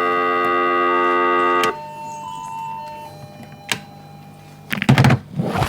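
An electronic organ-like chord from a children's button toy, held steady and cutting off about two seconds in, followed by a few fainter single held notes. A short loud noisy burst comes near the end.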